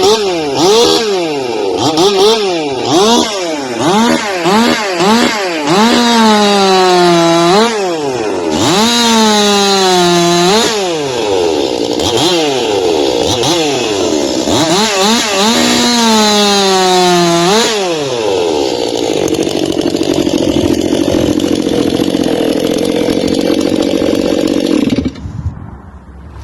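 Stihl MS 261 two-stroke chainsaw blipped up and down at full throttle, then cutting through a poplar log, its pitch sagging each time the chain loads in the wood. It does this three times, then runs steadier for several seconds and cuts off near the end.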